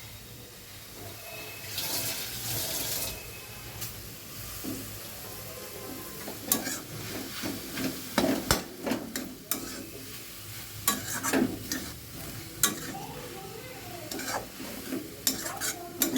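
A utensil stirring and scraping a chicken and potato filling in a hot pan, over a light sizzle. There is a brief louder hiss about two seconds in. From about six seconds on come frequent sharp clicks and scrapes of the utensil against the pan.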